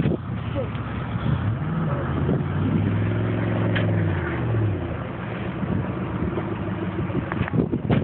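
A car engine revving, its pitch rising and falling, loudest for a couple of seconds in the middle, over a steady rush of street noise.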